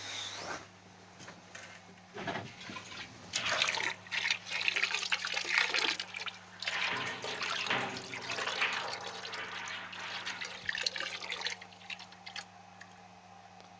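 Water from the hose of a Vodoley submersible membrane pump pouring into a metal barrel, splashing and gurgling unevenly as the barrel fills. A faint steady low hum runs underneath.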